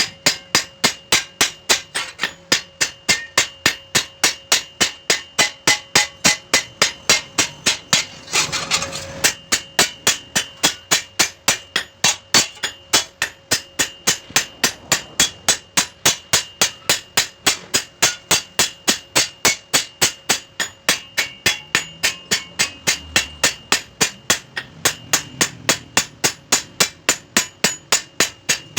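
A hand hammer strikes a steel chaff cutter blade at a steady rhythm of about three blows a second, the metal ringing under each blow as the edge is hammered out for sharpening. A short burst of noise breaks in about eight seconds in.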